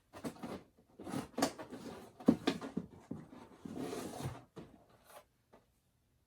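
Cardboard and plastic blister packaging of carded action figures rustling, scraping and clicking as they are handled and pulled from a cardboard shipping case; the handling stops abruptly near the end.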